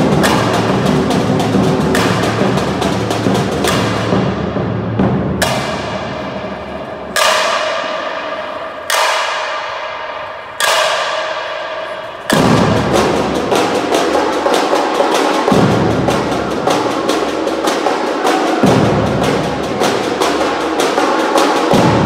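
Samba bateria drumming, with surdo bass drums under dense snare and hand-drum patterns. About four seconds in the low drums drop out for a break in which four loud ringing strikes sound about two seconds apart, each dying away, and then the full bateria comes back in about twelve seconds in.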